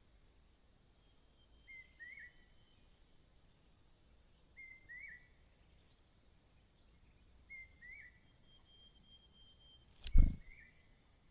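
A bird calling: a short chirp that rises and drops, repeated about every three seconds, four times. About ten seconds in there is one sharp, loud knock with a low thud.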